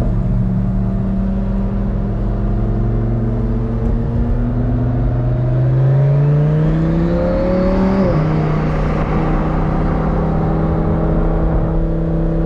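Supercar engine under way: it holds steady, revs climb for about three seconds, then drop sharply about eight seconds in at an upshift, and it settles to a steady drone in the next gear.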